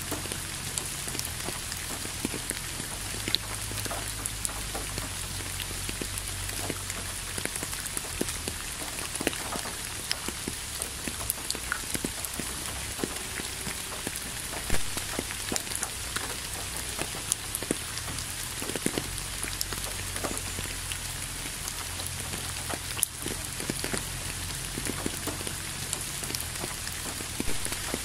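Steady rain falling, a continuous hiss with many separate drops ticking on top of it and one louder drop about halfway through.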